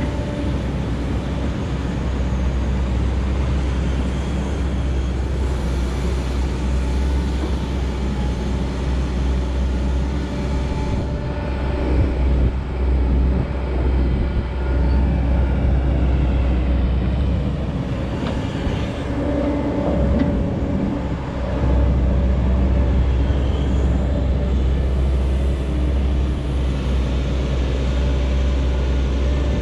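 Excavator's diesel engine running under load as it works, a steady deep hum with its note shifting as the hydraulics are worked, changing twice, a little under halfway through and again about two-thirds in.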